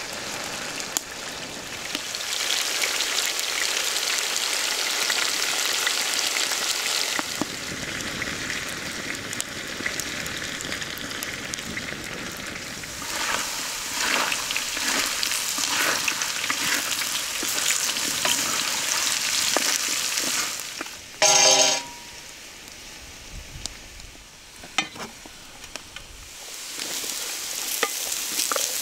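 Food sizzling and crackling as it fries in a metal pan, with stirring. About two-thirds of the way in, a metal utensil strikes the pan with a single ringing clang; the sizzling is quieter for several seconds after it, then builds again.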